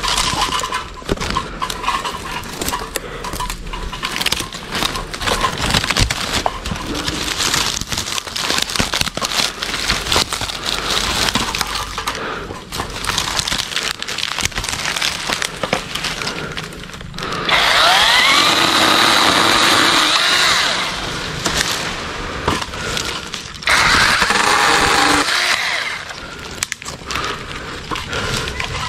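KEELAT cordless mini electric chainsaw cutting cempedak branches. Its motor and chain run loudly twice, first a little past halfway, with a high whine that rises as it spins up, then again a few seconds later. Before and between the runs there is a stretch of cracking and snapping of wood and rustling leaves.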